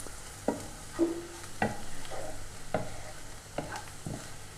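A cooking utensil stirring onions, green chillies, ginger and garlic frying in coconut oil in a pan, mixing in freshly added turmeric, with a light sizzle. About six sharp knocks of the utensil against the pan come at uneven intervals.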